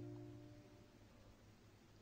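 Background instrumental music fading out early on, then near silence.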